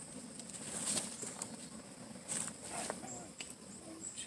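Steady high-pitched insect trill, with a few short, loud rustling bursts about a second in and again past the middle.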